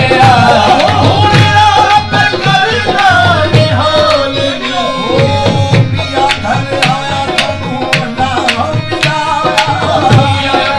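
Live qawwali music: tabla strokes driving a regular beat under a sung, ornamented melody line.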